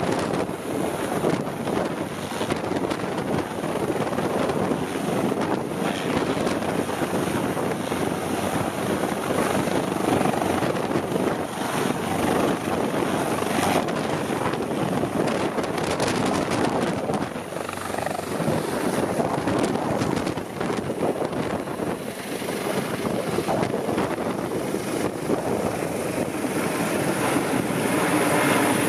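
AgustaWestland AW189 twin-engine helicopter hovering low and turning, then climbing away: steady loud rotor and turbine noise that grows louder near the end as it passes overhead.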